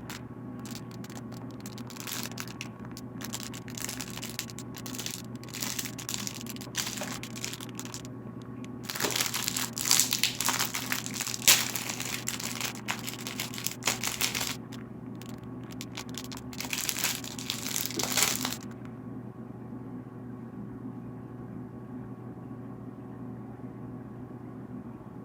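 Plastic packaging crinkling and crackling as it is handled and opened, on and off and loudest in two stretches in the middle, then stopping about two-thirds of the way through. A steady hum runs underneath.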